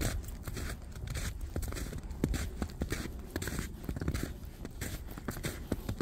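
Footsteps crunching in snow, a walker's boots pressing into the snowpack at a steady pace of about two steps a second.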